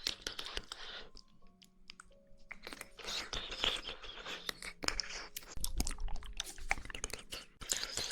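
Close-miked mouth sounds of someone chewing jelly, a dense run of short clicks and smacks.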